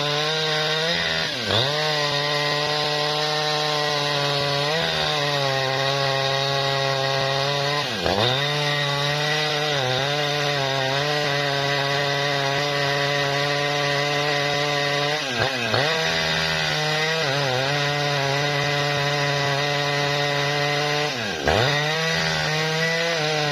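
Two-stroke Jonsered chainsaw held at full throttle while ripping along a log of tough bendo wood. About five times the engine pitch drops sharply and climbs back as the chain bogs in the wood.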